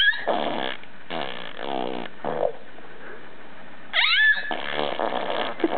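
A pet animal making a sound-effect trick: several harsh buzzing bursts, then a swooping whistle about four seconds in, followed by more buzzing.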